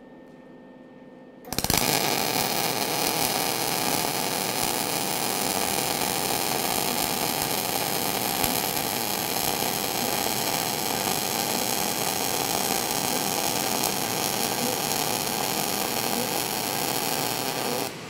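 MIG (gas metal arc) welding arc, solid wire under a 75% argon / 25% CO2 shielding gas, laying a bead across a plate. The arc strikes about a second and a half in with a steady, dense crackling hiss and cuts off abruptly near the end.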